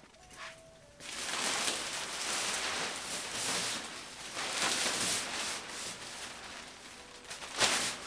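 Large thin plastic masking tarp rustling and crinkling as it is pulled and spread over a car body by hand, starting about a second in, with a louder crackle near the end.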